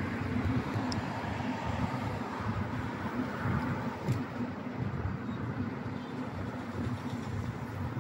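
Urban street traffic noise: a steady rumble and hiss of passing road vehicles, with an uneven low rumble throughout.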